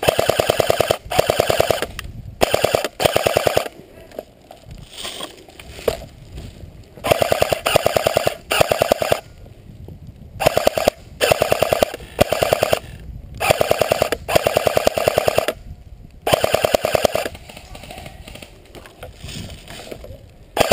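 Airsoft electric gun firing on full auto in short bursts, about a dozen of them, each a fast, even rattle of the gearbox cycling, with brief pauses between.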